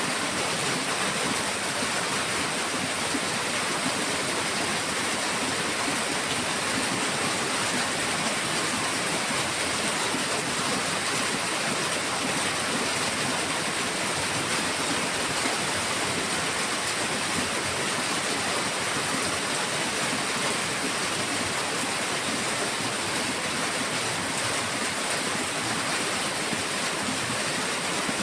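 Heavy rain falling steadily, a dense even hiss with no distinct drops or thunder.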